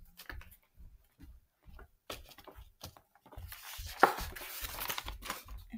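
A sheet of printed paper being handled and positioned on a spiral notebook: a few light scattered rustles, then steady rustling from about three and a half seconds in, with one sharp tap a little after that.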